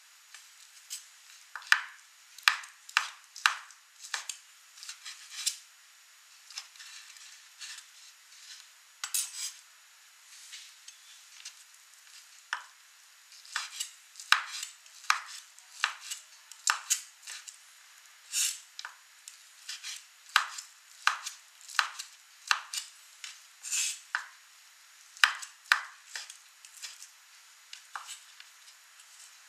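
Kitchen knife slicing shiitake mushrooms on a bamboo cutting board: sharp knocks of the blade on the board, about one or two a second in short runs with brief pauses between them.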